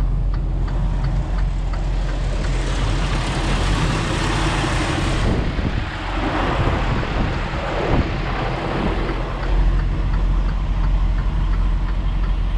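Semi-truck's diesel engine running, heard from inside the cab as the tractor-trailer pulls off, with faint regular ticking. A loud hiss starts about two seconds in and cuts off suddenly a few seconds later, and then the engine's pitch rises and falls.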